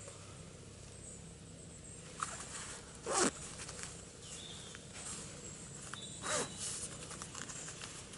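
Close rustling and scuffing of someone moving beside the camera on a leaf-littered woodland floor, with scattered light clicks and two louder swishes about three and six seconds in.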